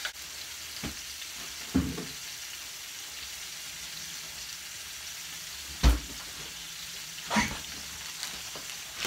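Chopped onion, garlic, cilantro and peppers sizzling in hot oil in a small frying pan, a steady frying hiss. A few sharp knocks sound over it, the loudest about six seconds in.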